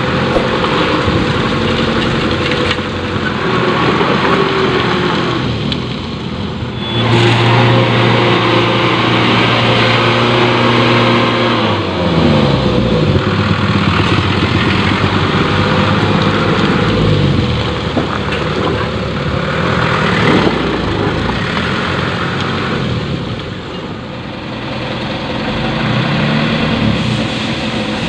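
Loaded light dump truck's engine working through deep mud, revs held high for several seconds and then rising and falling repeatedly as it pulls out.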